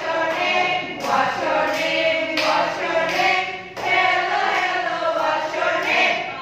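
A group of women's voices singing a simple song together in unison, in short sung phrases about a second long.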